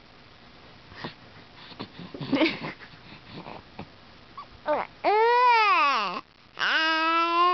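Young baby crying: after a few short soft sounds, two long wails about five seconds in, the first rising and then falling in pitch, the second starting high and dropping into a steady held cry.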